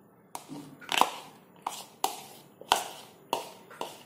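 A metal spoon knocking and scraping against bowls as grated cheese is scooped from a plastic bowl into a glass mixing bowl: about seven sharp knocks, roughly two a second.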